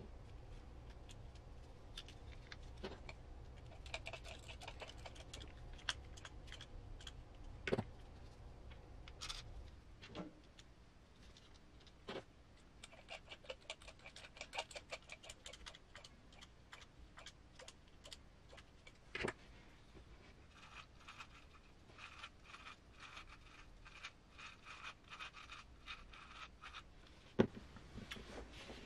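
Faint, scattered clicks and short runs of fine ticking and rattling from small screws and plastic and metal parts being handled and screwed together while assembling an RC crawler's transmission, over a low hum that stops about ten seconds in.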